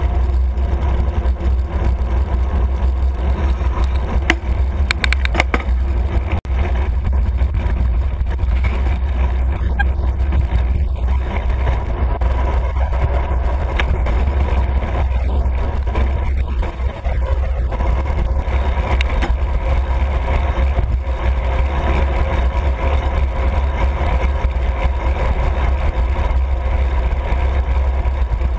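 Steady wind rumble on the microphone of a camera moving along a road, with passing road traffic heard underneath.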